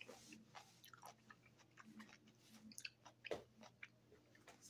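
Near silence: faint room tone with a few small mouth clicks and lip smacks in a pause between words.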